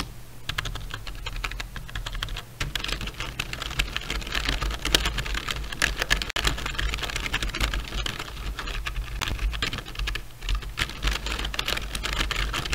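Fast typing on a Zebronics Zeb K35 slim membrane keyboard, a dense run of key clicks with a slight grinding, rubbing sound as the keys go down; the reviewer blames that rubbing for the keys feeling a little stiff.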